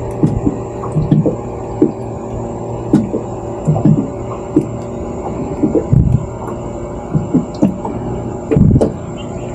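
A steady low mechanical hum, broken by irregular dull thumps about once or twice a second, with a longer, louder one near the end.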